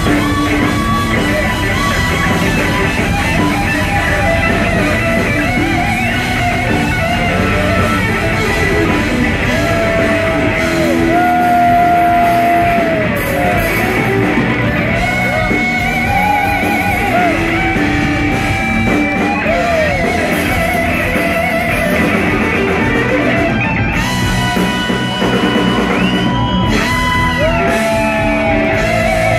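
Live blues-rock band playing loud, with electric guitar lead: long, bent, sustained notes with vibrato over drums and a second guitar.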